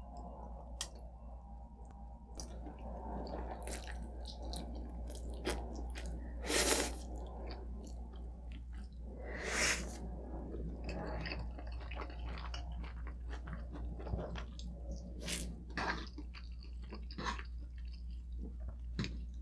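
A person chewing and eating food close to the microphone: wet mouth sounds and many small clicks, with two louder, longer noisy sounds about a third and halfway through. A steady low hum runs underneath.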